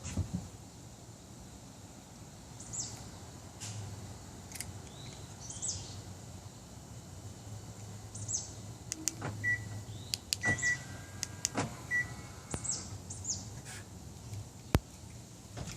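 A car's electric body motors run in short spells, in the way of power windows or folding mirrors. Sharp relay and actuator clicks come in between, and a few short high beeps sound about two-thirds of the way through.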